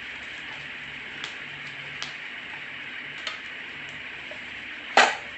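A few light clicks and one loud sharp click near the end as a Makita circular saw is handled and its parts are tried out. The motor does not run. A steady hiss sits underneath.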